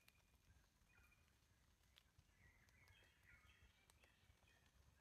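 Near silence: faint forest ambience, with a few faint high bird chirps two to four seconds in.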